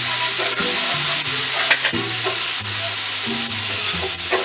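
Onion-and-spice masala sizzling in hot oil in a pan after a splash of water, stirred with a spoon that scrapes the pan a couple of times. Background music with steady low notes plays underneath.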